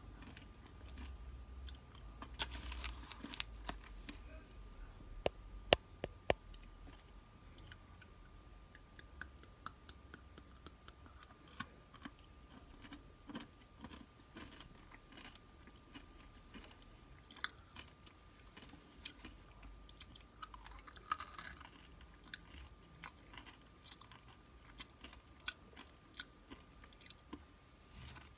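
Close-miked chewing and crunching of snacks: a run of sharp, crisp crunch clicks, with denser bursts of crunching about three seconds in and again about twenty-one seconds in.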